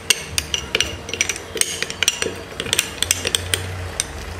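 Metal spoon stirring a thick paste of curd and crushed vitamin C capsules in a small glass bowl: irregular clinks and scrapes of the spoon against the glass, a few a second.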